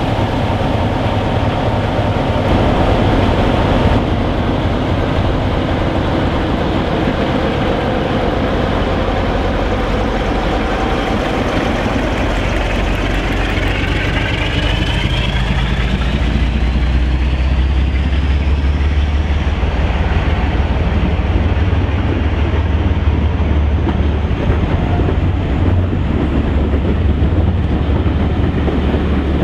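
Class 47 diesel locomotive's Sulzer twin-bank engine working hard as it pulls away with a train of coaches. About halfway through, a rising whine climbs in pitch as the locomotive passes close by, followed by a deep, heavy engine rumble. Near the end the coaches roll past.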